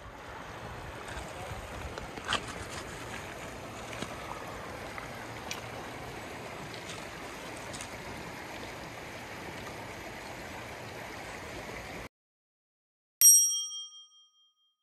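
Shallow river running over a stony bed, a steady rush of water with a few small clicks. It cuts off abruptly about 12 seconds in. About a second later a single bright chime rings and fades over a second or so.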